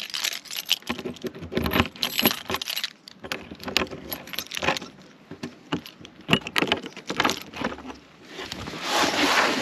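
A bunch of keys jangling on a keyring, with small metallic clicks as a key works the locking latches of a caravan's front storage hatch. There is a louder swell of noise near the end as the hatch comes open.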